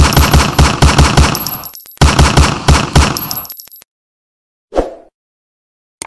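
Rapid pistol gunfire from a Colt 1911 .45: two strings of shots, about six a second, each string lasting about two seconds and ringing out after the last shot. A single short, duller knock follows about a second later.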